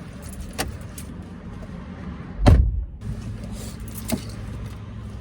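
A car door shutting with a heavy thud about two and a half seconds in, over a low steady hum, with a few light clicks before and after.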